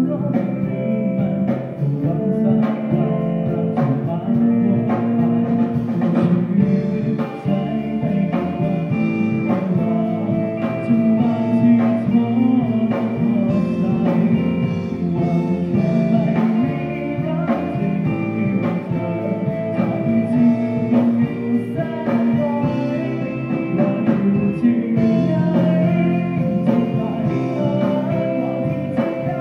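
Live rock band playing through a PA: electric guitars, bass and drums with a male singer, the drums keeping a steady beat.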